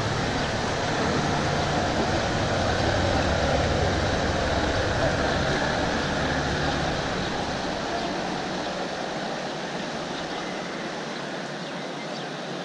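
Small river tour boat's engine running as it passes and pulls away, its low hum fading out over the last few seconds, over a steady wash of water from its wake.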